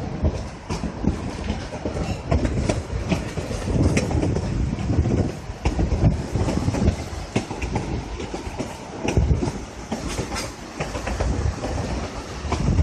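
Narrow-gauge passenger train rolling along the track as heard from aboard: a steady rumble with irregular clicks and rattles of the wheels and cars.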